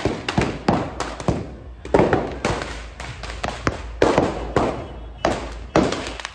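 Firecrackers packed inside a burnt effigy going off: an irregular string of sharp bangs, several a second at times, with short pauses between clusters.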